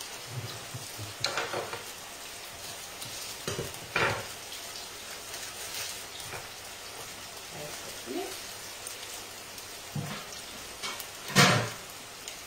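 Diced potatoes sizzling steadily in oil in a frying pan, with a few short knocks on the worktop, the loudest near the end.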